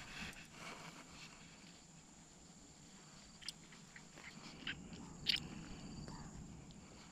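Close-up handling noise of fingers working a hook into a small fish: soft rustling, then a few sharp clicks, the loudest about five seconds in.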